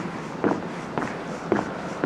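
Footsteps of a person walking at an even pace, about two steps a second, over a faint steady hum.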